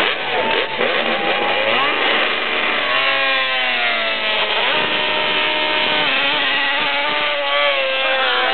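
Several MotoGP racing motorcycles riding past and accelerating away, their engine notes overlapping and sliding up and down in pitch as they rev and pass.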